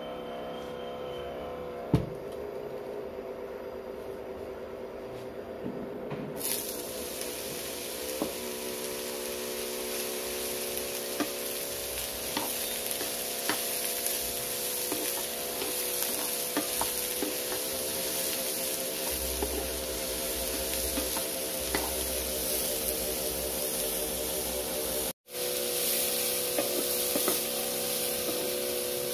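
Boiled chickpeas sizzling in hot oil in a nonstick frying pan, stirred with a spatula that clicks and scrapes now and then. The sizzle starts about six seconds in, with a single sharp knock before it, over the induction cooktop's steady hum.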